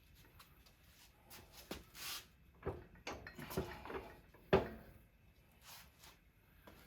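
Knocks, taps and scrapes from handling a motorcycle rear wheel while working the drive belt onto its pulley. The loudest knock comes about four and a half seconds in.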